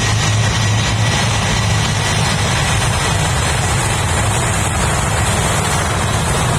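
Jet aircraft engines running, a loud steady noise with a deep rumble under it and a faint high steady whine.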